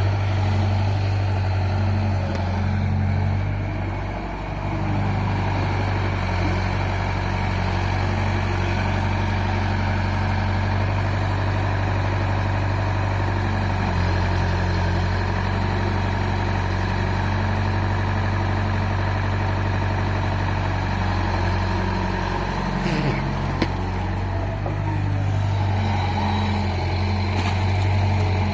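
Excavator's diesel engine running steadily with a low hum, its note dropping briefly a couple of times as the load changes.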